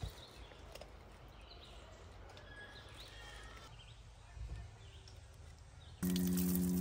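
Quiet outdoor ambience with faint short bird chirps. About six seconds in it cuts to an RV's outdoor shower spraying water over hands, loud and steady, over a steady low hum.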